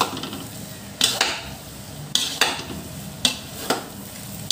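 Metal spatulas scraping and clanking against a steel wok as fried rice vermicelli is tossed, a sharp stroke about every second, some in quick pairs, over a low sizzle of frying.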